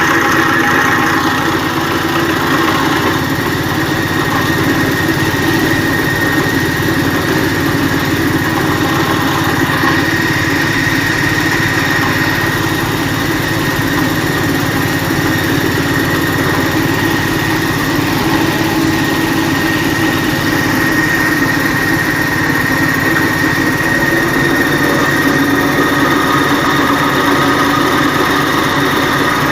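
8-inch spice grinding machine running steadily while grinding raw garlic into paste: a continuous mechanical drone with a steady high tone over it.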